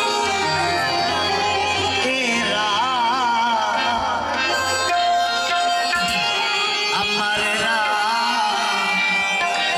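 Instrumental interlude of Saraiki folk music: a wavering lead melody over sustained accompaniment and hand drums.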